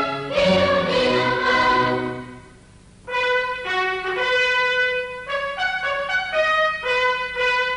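The end of a marching song sung with orchestra dies away. About three seconds in, pennant-hung fanfare trumpets start a bright signal call of short and held notes.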